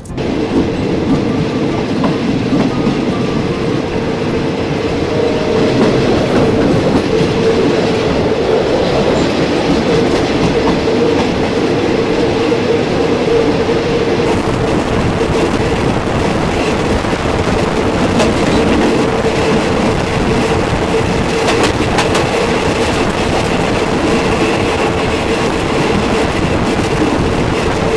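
State Railway of Thailand passenger train running on the track, heard from a carriage window: the steady rumble and rattle of the moving train, with wheel clicks over the rails.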